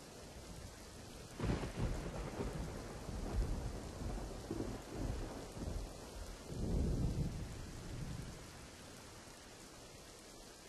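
Steady rain hiss with a long roll of thunder. The thunder starts rumbling about a second and a half in, swells several times and dies away about eight seconds in.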